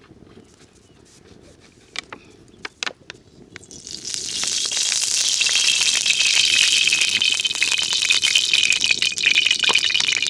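Food sizzling and crackling in hot fat in a pot over a wood fire. It starts suddenly about four seconds in, after a few light clicks, and carries on as a loud, steady, dense crackle.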